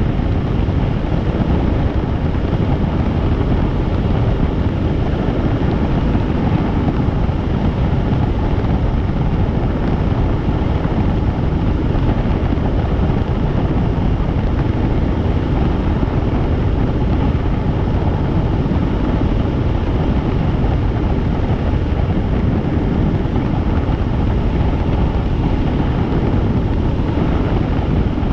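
Helicopter in flight heard from on board: a loud, steady rotor and engine noise that holds even throughout.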